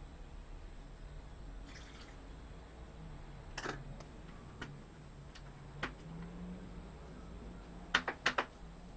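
Yeast starter briefly poured through a plastic funnel into a plastic-bottle fermenter, then light plastic clicks and knocks as the funnel comes off and an S-shaped airlock is fitted. A quick run of three or four sharp clicks near the end is the loudest part.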